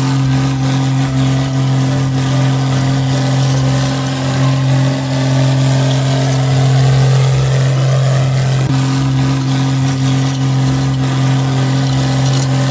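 Tractor engine running steadily with a constant low hum.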